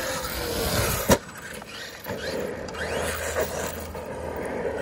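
Traxxas Maxx 1/10-scale RC monster truck driving, its electric motor whining up and down in pitch over tyre and running-gear noise, with a sharp thump about a second in.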